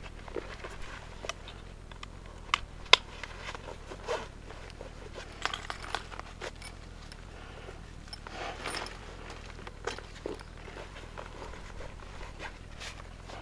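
Footsteps crunching and scraping on a rocky dirt trail, uneven and slow, with a few sharp clicks of stones.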